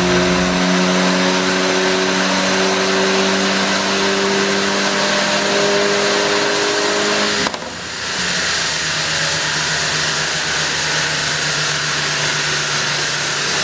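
A loud, steady motor-driven whir with a hum in it. It cuts out abruptly about seven and a half seconds in, then comes back with a lower hum.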